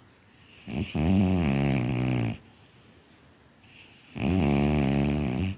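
A cat snoring: two long, low, buzzy snores about three seconds apart, with quiet breathing between them.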